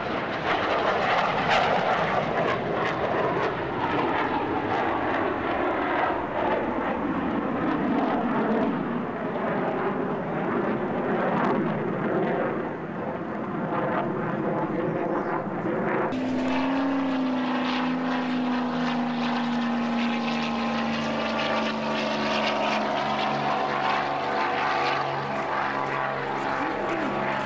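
Military jet engine noise from a fighter flying past overhead, an even rushing roar. About sixteen seconds in it cuts to a single-engine propeller trainer droning past, its engine tone steady and slowly falling in pitch.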